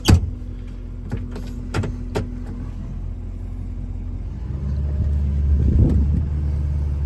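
A sharp click, then a few lighter clicks over a low steady hum. About four and a half seconds in, a vehicle engine's low drone comes in louder and holds steady.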